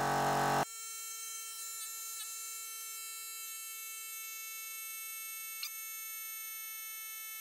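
Tuff Stuff 12 V portable tire compressor running while inflating a tire, briefly at normal speed and then sped up with fast-forwarded footage into a steady high-pitched buzz with a stack of even overtones and a few faint ticks. It cuts off suddenly near the end.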